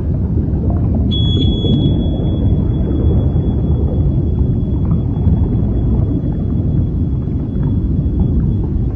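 Underwater sonar recording presented as the sound of the Titan submersible's implosion: a dense, steady low rumble of noise, with a thin high steady tone joining about a second in. No single sharp bang stands out.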